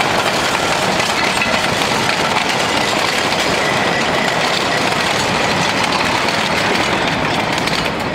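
Narrow-gauge freight cars and a wooden caboose rolling past on the rails, a steady clatter and rumble of wheels on track that eases off slightly right at the end as the last car goes by.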